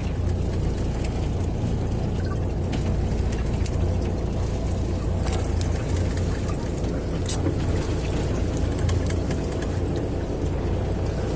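Fishing boat's engine running steadily at idle, a low even drone, with a few faint scattered clicks.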